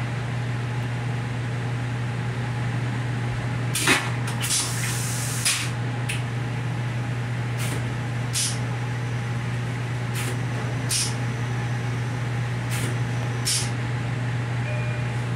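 A Long Island Rail Road C3 passenger coach heard from inside its small restroom: a steady low hum and rumble, with sharp light clacks that come mostly in pairs every few seconds from about four seconds in.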